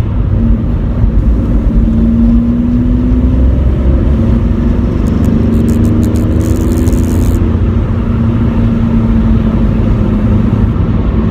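Volkswagen Polo 1.2 TDI Bluemotion's three-cylinder turbodiesel pulling under throttle while driving, heard from inside the car: a steady low rumble with an engine note that climbs slightly and then holds.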